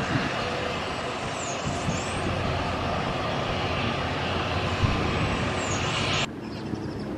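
Gulfstream business jet's turbofan engines running on the ground, a steady rushing hiss with low gusts of wind on the microphone. The sound drops away abruptly near the end.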